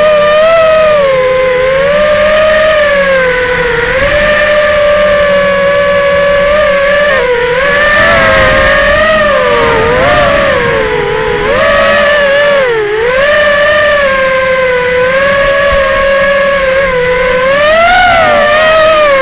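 FPV quadcopter's brushless motors and propellers whining loudly, the pitch sliding up and down with the throttle as it flies, with a sharp dip about two-thirds of the way through and a climb near the end.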